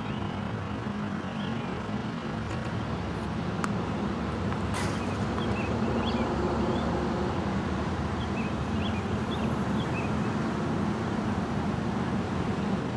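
Steady outdoor background rumble like distant road traffic, with birds chirping over it. One sharp crack about five seconds in, typical of a racket striking the ball on a serve.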